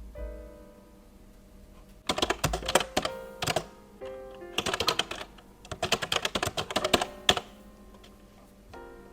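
Typing on a computer keyboard in three quick bursts of key clicks, over soft background music.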